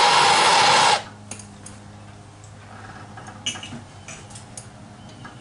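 Small propane hand torch burning with a steady hiss, heating a rust-seized brake line nut to free it. The torch cuts off suddenly about a second in, leaving a few light metal clicks and clinks.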